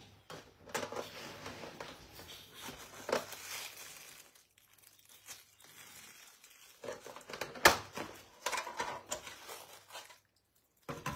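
Clear plastic takeout clamshell being handled and its lid opened: irregular plastic crinkling and crackling, with one sharp snap about two-thirds of the way in.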